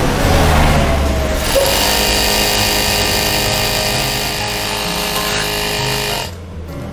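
JUKI DDL-8100E industrial servo sewing machine running at speed to drive its bobbin winder, a steady machine whirr that stops suddenly about six seconds in, once the automatic winder lever has tripped off with the bobbin full.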